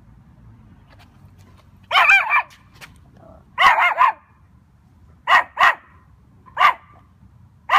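Seven-month-old Maltese puppy yelping and barking in a high voice while it fights the leash: two longer wavering yelps about two and four seconds in, then several short, sharp barks.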